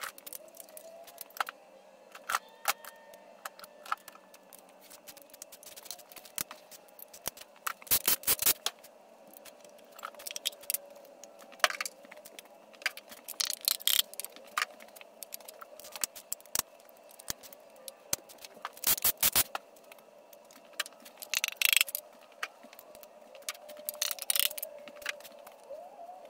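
Irregular metallic clinks, knocks and scrapes of hand tools and engine parts as connecting rods and pistons are taken out of a 5.3-litre LS V8 block, with several short bursts of quick rattling clicks.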